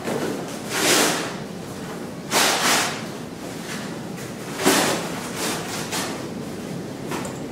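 Large soft fabric costume pieces swung and shaken, making swishing, rustling swooshes: three big ones about a second, two and a half and nearly five seconds in, with smaller rustles after, over a steady room hum.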